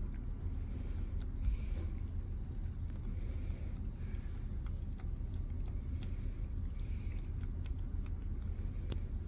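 Black cat licking and chewing a treat off fingertips: many faint, quick, wet clicks, over a steady low rumble.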